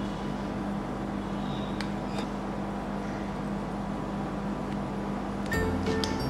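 Steady low hum of a rolled-ice-cream machine's refrigeration unit running under the cold plate, with a couple of faint light clicks of a metal spoon against the cup. Music starts near the end.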